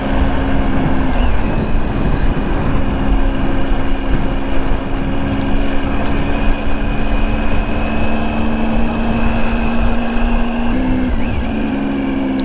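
Motorcycle engine running steadily under way, with a dense low rumble beneath it. Near the end the engine note dips briefly, then settles again at a slightly different pitch.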